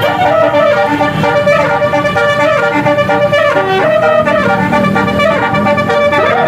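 Basuri telolet multi-tone bus horn playing a tune, its brassy notes stepping one after another without a pause.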